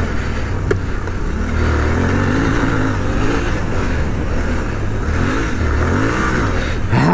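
Suzuki V-Strom 800DE's 776 cc parallel-twin engine revving up and easing off several times while the bike is ridden hard on a loose dirt trail, over a steady rush of wind and tyre noise. A single sharp click about a second in.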